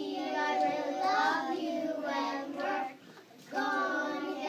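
A group of young children singing a song together in unison, with a short break between lines about three seconds in.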